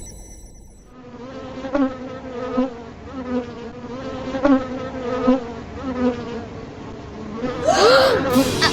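Buzzing of a swarm of bees, a sound effect, starting about a second in and pulsing in waves. Near the end a louder sound with rising and falling pitch comes in over it.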